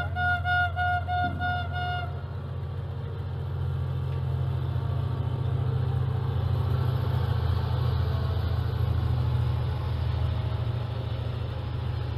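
A horn sounds a quick string of short toots in the first two seconds, over a steady low hum. Then the rumble of a diesel-hauled passenger train passing close by swells and stays up.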